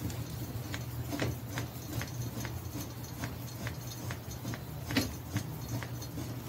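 Light, irregular clicking, about three clicks a second with a louder one about five seconds in, as a wrench turns the tie rod on a Honda TRX450R quad to bring the front wheel straight (setting the toe).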